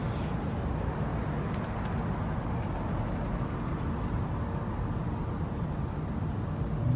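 Steady outdoor background rumble, like distant city traffic, with no siren sounding.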